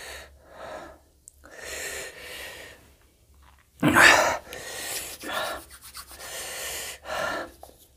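A man breathing hard through his open mouth: a run of sharp, hissing breaths and gasps, his reaction to the burn of eating very hot green chillies. The loudest gasp comes about four seconds in.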